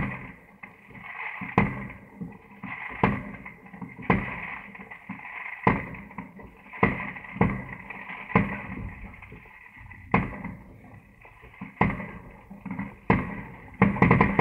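Fireworks shells bursting overhead: about a dozen sharp bangs, one to two seconds apart, with a steady hiss and low rumble between them.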